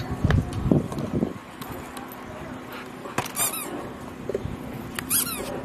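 A squeaky toy squeezed in two quick runs of squeaks, about three seconds in and again near the end. Low muffled bumps in the first second or so.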